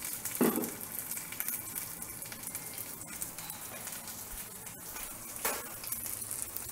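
Tempering of mustard seeds, urad dal and green chillies sizzling steadily in hot oil in a kadai, with fine crackles as they fry.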